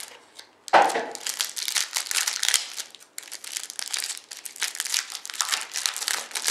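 A foil trading-card pack wrapper from a 2010 Absolute football box being torn open and crinkled by hand. It starts with a sharp rip a little under a second in, then runs on as continuous crackling.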